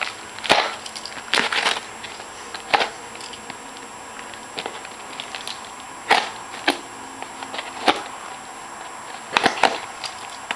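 A small cardboard box being opened with a pocket knife and its packaging handled: irregular clicks, taps and light knocks, a few of them in quick clusters.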